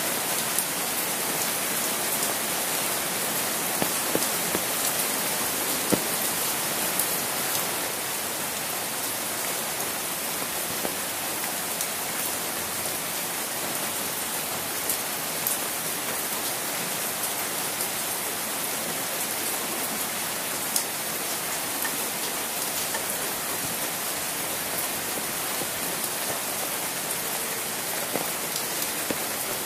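Steady rain falling, with single close drops ticking sharply now and then.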